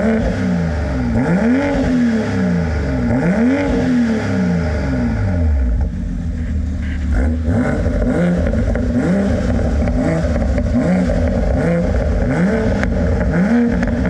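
2020 Toyota GR Supra revved at standstill through its HKS exhaust with the bimodal valve open, a deep, throaty note. Long rev sweeps about every two seconds give way, about halfway through, to quicker, shorter throttle blips about once a second.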